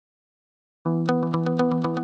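Silence, then background music starts abruptly just under a second in: held chords over a fast, even pulsing beat.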